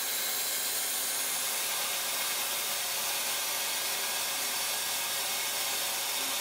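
Proxxon long-neck drill/grinder spindle running at 20,000 rpm on a CNC router, its bit milling a groove in MDF board, while a vacuum hose at the cutter sucks up the dust: a steady hiss.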